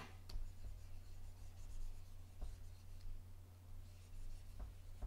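Faint taps and rubbing strokes of drawing on a phone's touchscreen, with a few soft clicks spread through. A steady low hum lies beneath.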